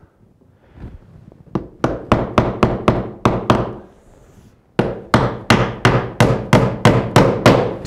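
Hammer driving a nail through a window's nailing flange into the wall sheathing to tack the corner. It comes in two quick runs of blows, about four a second, the second starting about five seconds in.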